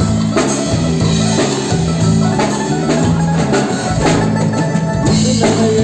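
Music with a drum kit and a steady, stepping bass line, playing loudly.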